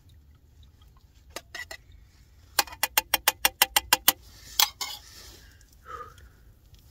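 Metal spoon stirring tea in a metal camping mug, clinking against its side: a few taps, then a quick run of about ten clinks in a second and a half, and two more after it.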